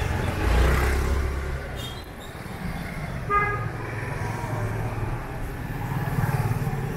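Street traffic: a vehicle engine running close by, with a short horn toot about three seconds in.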